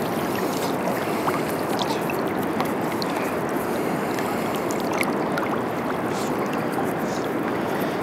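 Steady rush of a fast-flowing river's current, with a few faint ticks over it.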